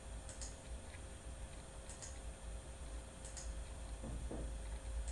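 Faint computer mouse clicks, about four spaced a second and a half apart, some doubled as press and release, over a steady low hum.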